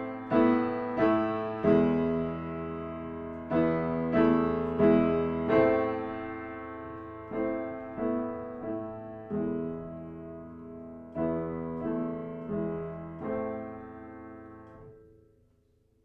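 Piano played with both hands: the teacher's duet accompaniment to a beginner piece, a slow run of struck chords and notes, each left to ring and die away. The last chord fades out about a second before the end.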